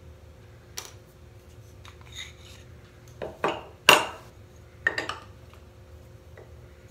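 Metal clinks and knocks as a steel shoulder plane body and its iron are handled and set down on a wooden bench: a light click about a second in, a quick cluster of knocks just before four seconds in (the loudest), and two more around five seconds.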